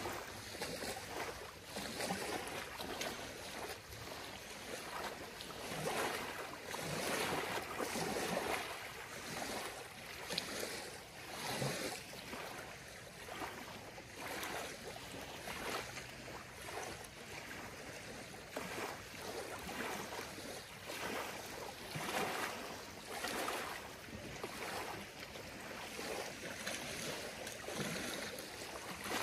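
Small ripples lapping on a gravelly lakeshore, each wavelet washing in with a soft splash that swells and fades every second or two.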